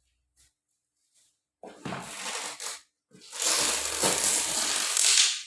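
Parcel packaging being torn open by hand: two long rustling tears, the first about a second long and the second about two seconds.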